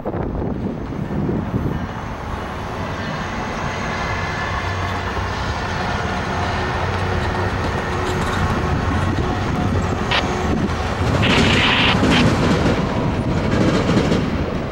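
Tri-Rail commuter train passing, its diesel locomotive running and its wheels rumbling and clattering over the track, slowly growing louder. A few sharp clanks and a brief higher rush come about ten seconds in.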